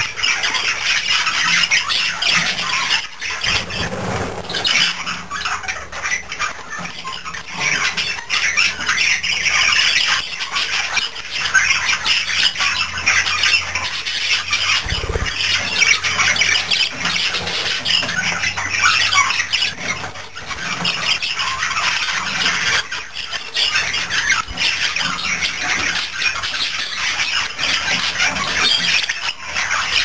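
Budgerigars chattering and chirping without a break, a dense run of short squawky notes and warbles.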